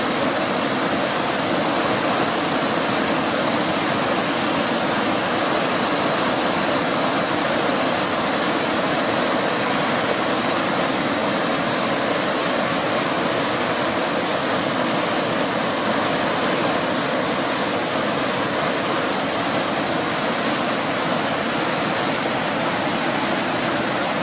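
Waterfall in heavy flood flow: a steady, loud rush of water that never lets up.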